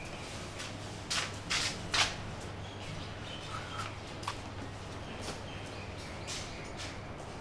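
Three sharp footsteps about half a second apart, about a second in, over a steady low hum.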